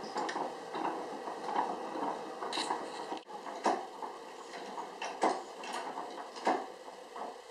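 Wooden automaton mechanism running: a continuous clatter with several sharp knocks about a second apart.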